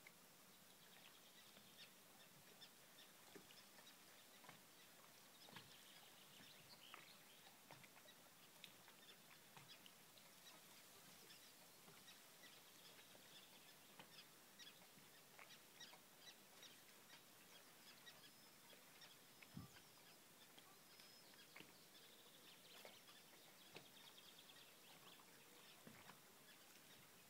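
Near silence: a faint hiss of outdoor ambience with scattered soft ticks and faint high bird chirps here and there.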